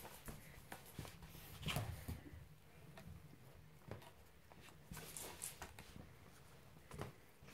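Faint scuffling and scratching of a kitten and an adult cat wrestling around a sisal scratching post, with paws and claws on the wooden floor and the post. It comes in short scuffles, loudest about two seconds in and again about five seconds in.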